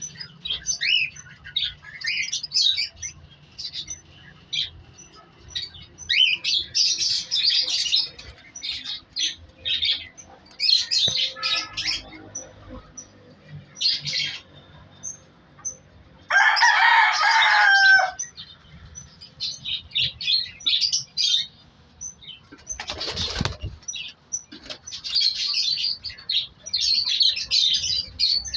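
Cockatiels chirping in many short, high calls. A louder, harsher call of about two seconds comes past the middle, and a brief flutter of wings comes later.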